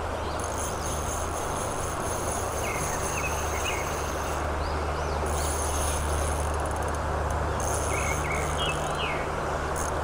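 Steady rush of stream water over a riffle, with a steady low hum beneath it. High-pitched insects trill in stretches that stop and start, and a few short bird chirps come about three seconds in and again near the end.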